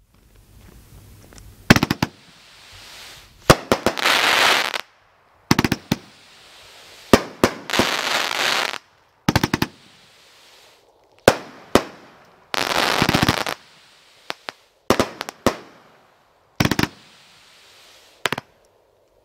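World Class Fireworks 'Fast Food' 500-gram, 25-shot cake firing: groups of sharp shots every second or two, beginning about two seconds in. Several of the groups are followed by a noisy burst about a second long.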